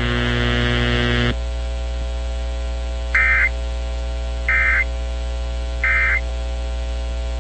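Emergency Alert System end-of-message signal: three short bursts of digital data tones, about a second and a quarter apart, that mark the end of the alert. They sit over a steady electrical buzz on the broadcast audio, which drops in level about a second in.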